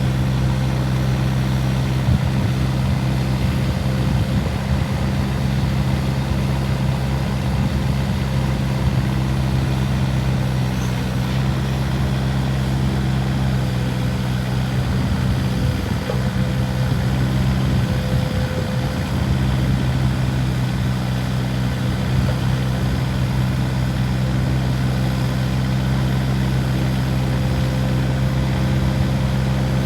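Volvo EC15E mini excavator's diesel engine running at a steady, even speed.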